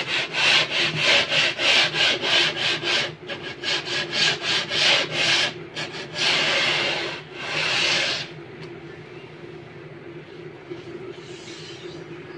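Hand strokes rubbing along the edge of a melamine-faced particle-board panel: quick back-and-forth strokes, about three a second for five-odd seconds, then two longer strokes. It stops about eight seconds in.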